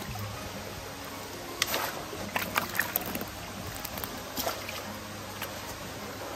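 Water running and trickling steadily over a low steady hum, with a few sharp splashes around two seconds in and another just past four seconds.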